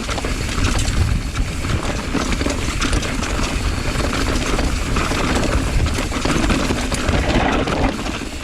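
Mountain bike descending a loose dirt trail: tyres crunching and skidding over loose dirt and stones, with wind rushing over the microphone. Many small clicks and rattles run through it, and there is a low buffeting rumble.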